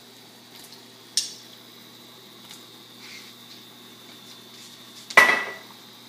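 Kitchenware clatter: a short sharp click about a second in, then a loud clank near the end that rings on briefly before fading.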